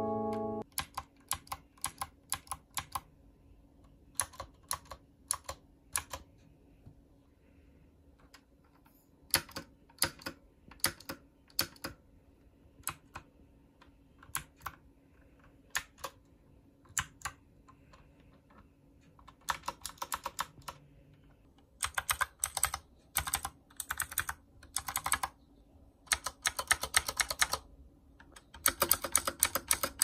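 Typing on a Mofii Candy mechanical keyboard with clicky blue switches. At first the keys are pressed one at a time, and about two-thirds of the way through they come in fast, dense runs of typing.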